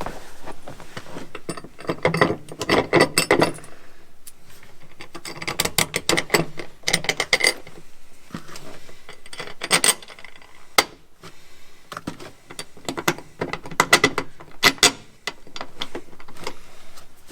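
Ratchet mechanism clicking rapidly in repeated bursts with short pauses between them, typical of a ratchet tool working bolts or a hand-worked tool.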